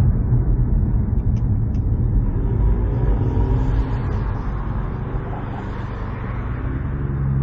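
Ford Mustang EcoBoost's turbocharged four-cylinder engine and road rumble while driving. The sound dips about halfway through and rises again near the end.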